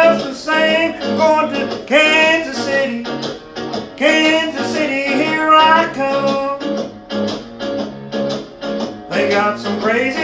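A voice singing over strummed acoustic guitar.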